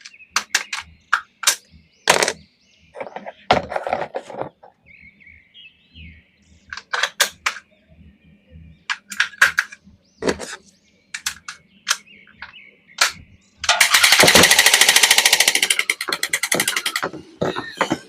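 Plastic toys being handled: scattered sharp clicks and knocks, then a fast, dense rattle of clicks lasting about three seconds near the end.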